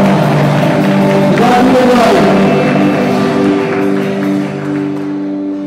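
A live band with a singer finishing a song: the singing stops about two seconds in and a held chord rings on, slowly fading.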